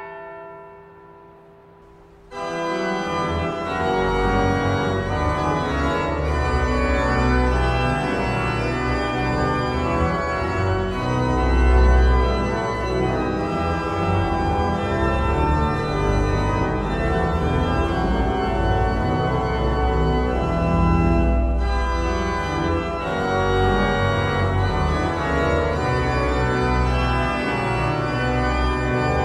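A single church bell stroke dies away. About two seconds in, the Arp Schnitger pipe organ of St. Jacobi begins playing a prelude of sustained, changing chords over deep pedal bass notes.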